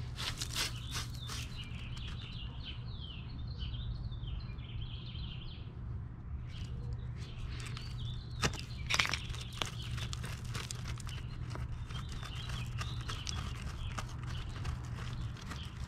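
Small scraping and crunching clicks as loose chunks of broken concrete are picked and pulled by hand from a chiselled-out step, with a sharper knock of concrete about eight and a half seconds in. Birds chirp in the background.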